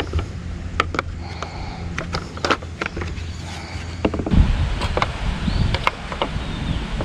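Scattered sharp metal clicks and clinks of hand tools and parts being handled on a mower deck, over a steady low hum. About four seconds in, a louder low rumbling sets in.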